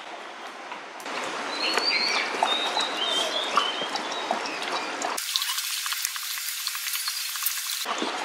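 A dog lapping and slurping coconut water from a plastic bowl as it is poured in from a king coconut: wet, crackly splashing full of quick small clicks.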